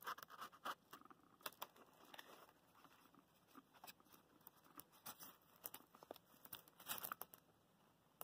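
Faint handling noise at a small Stirling engine on its foam-insulated cup: irregular light clicks, taps and scratchy rustles from fingers on the metal parts and the foam and fibre insulation, with a louder cluster about seven seconds in.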